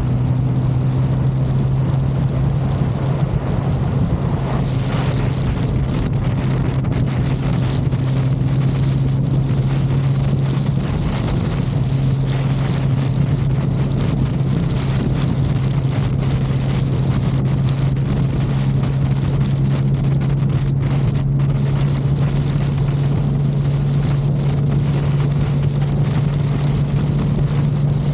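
BMW K1600B motorcycle's inline-six engine running steadily under way, with wind rushing over the microphone. The engine note breaks briefly about eleven seconds in, then holds steady again.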